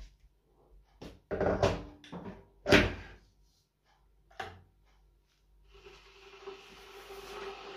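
A few knocks and clatters of kitchen things being handled and set down on a counter, the loudest about three seconds in. From about six seconds a kitchen tap starts running into a stainless steel sink, growing steadily louder.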